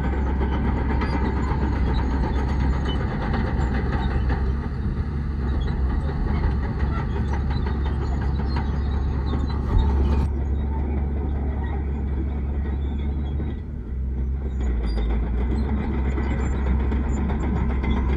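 Heavy diesel earthmoving machinery running steadily, with a deep engine rumble. The higher part of the sound drops away suddenly about ten seconds in, and the level dips briefly near fourteen seconds.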